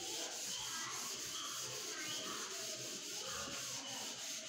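Whiteboard duster rubbing across a whiteboard in repeated wiping strokes, erasing the writing.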